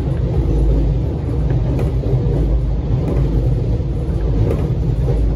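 Alstom X'Trapolis electric train running, with a steady low rumble of wheels on the track and a few faint clicks.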